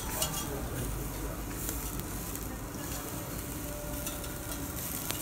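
Slices of beef sizzling on the hot wire grate of a tabletop gas yakiniku grill, a steady hiss of fat cooking as they are laid down with metal tongs.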